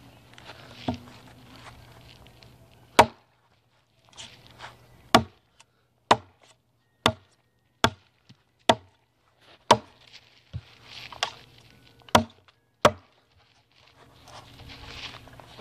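A TOPS Knives El Chete, a quarter-inch-thick 1095 high-carbon steel cleaver, chopping into a log: about ten sharp strikes of the blade biting into the wood, roughly one a second, starting about three seconds in.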